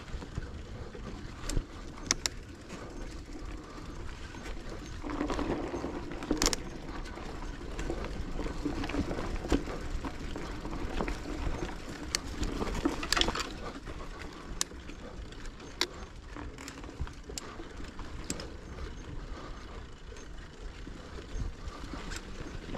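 Bicycle riding noise: tyres rolling along a park path over a low rumble, with scattered sharp clicks and rattles. It is rougher and fuller for several seconds in the middle.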